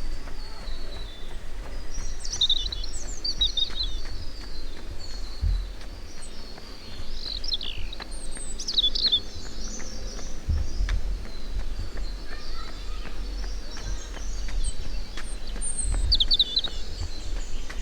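Small songbirds chirping in quick, high trills, in bouts about three seconds in, around eight seconds in and near the end, over a steady low rumble.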